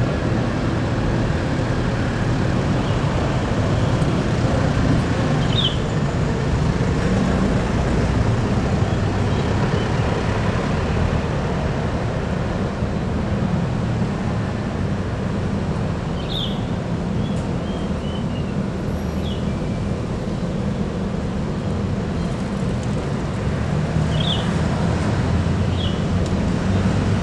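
Bus engines running at a terminal, a steady low rumble with traffic noise, with a few short high chirps heard now and then.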